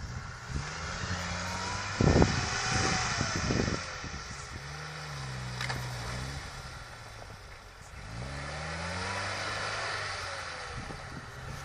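A UAZ off-roader's engine revving up and down repeatedly as the truck works in deep snow, its pitch climbing and falling several times. There is a burst of rumbling noise on the microphone about two seconds in.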